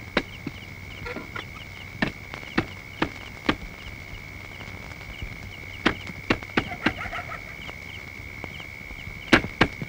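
Night insect ambience: a steady high chirring trill, like crickets, runs throughout, with short chirps repeating above it. Irregular sharp taps and knocks come through it, in a cluster around six to seven seconds in and again near the end.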